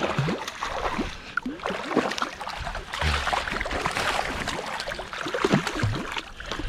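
Sea water lapping and splashing against a fishing kayak's hull, with small knocks and crackles.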